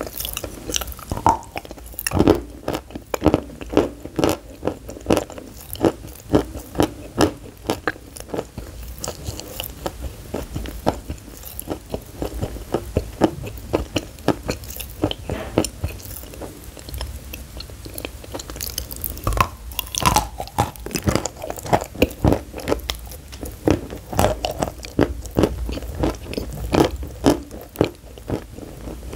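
Close-miked crunching bites and chewing of dry, crumbly white chalk-like sticks. Sharp crackling crunches come in quick runs, easing off for a few seconds near the middle, then picking up again.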